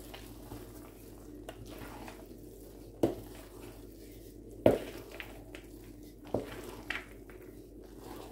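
Wooden spoon stirring soft yeast dough with raisins in a large metal basin, the spoon knocking against the basin four times, loudest about halfway through.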